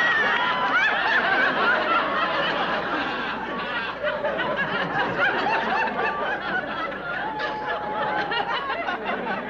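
Studio audience laughing, the laughter slowly dying down.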